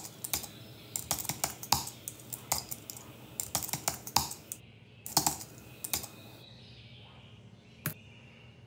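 Typing on a laptop keyboard: irregular keystroke clicks for about six seconds, then one more key press near the end.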